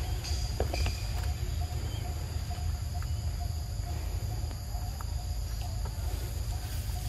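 Outdoor ambience of a steady high-pitched insect chorus, with a faint note pulsing a few times a second, over a continuous low rumble.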